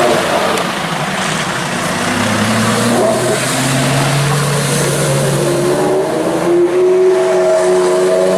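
Loud sports car engine running, its note climbing as the car accelerates in the last couple of seconds.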